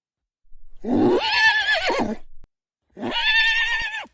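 Horse neighing twice: a long wavering whinny of about two seconds, then a shorter one.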